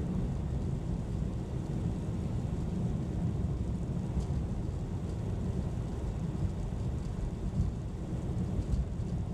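Car driving on a snow-covered highway: a steady low rumble of tyre and engine noise.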